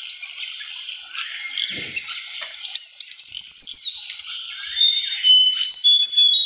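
Wild birds singing over a steady high background chorus. About three seconds in, one bird gives a loud rapid trill that slides gently down in pitch for about a second. Near the end, short high whistled notes come in a quick series.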